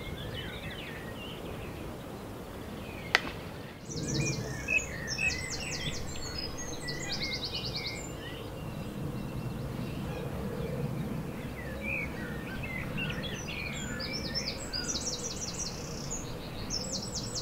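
Songbirds singing: scattered chirps and fast, high repeated trills over a steady outdoor background hiss, with the birdsong picking up about four seconds in. A single sharp click sounds about three seconds in.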